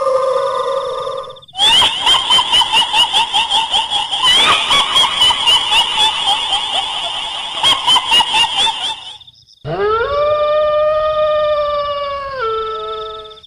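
Recorded kuntilanak ghost voice: a long high-pitched female wail, then a stretch of fast, pulsing cackling laughter, then another wail that rises, holds, and steps down in pitch near the end.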